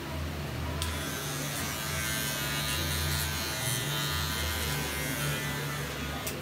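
Cordless hair clipper buzzing as it trims the hair along the side and back of a head, switching on about a second in and cutting off sharply near the end.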